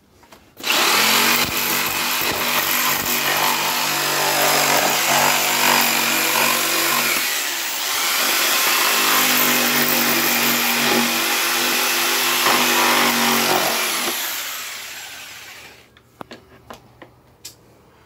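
Corded jigsaw cutting through the plastic lid of an ice chest. It runs steadily for about thirteen seconds with a brief dip in the middle, then winds down and stops, followed by a few light knocks.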